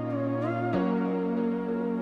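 Soft, slow background music: a gliding melody over held low notes.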